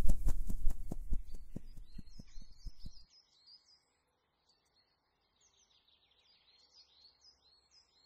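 Outro logo sound effect: a quick, even run of sharp taps with a deep low end that dies away about three seconds in, overlapped and followed by faint bird chirps and song, short falling notes repeated many times.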